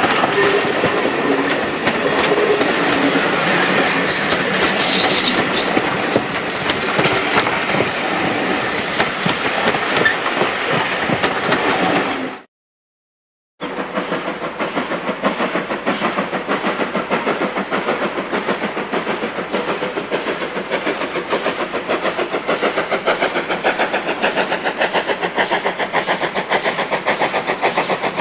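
Passenger coaches of a steam train rumbling and clattering past close by. After a brief gap, a steam tank locomotive approaches working hard, its exhaust beating in a rapid, regular rhythm.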